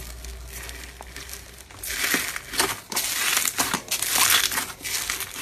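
Slime being squeezed and pressed: a run of irregular squishing, crackly noises starting about two seconds in.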